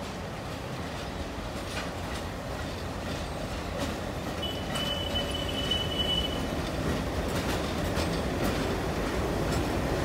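Twin WDG-3A diesel locomotives (ALCO-type) pulling out with a train, their engines working under load and growing louder as they pass close by. Wheels click over the rail joints, and there is a brief high squeal about halfway through.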